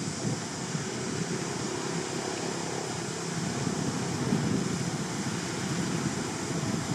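Wind rushing across the microphone outdoors, a steady noisy rumble that grows slightly louder.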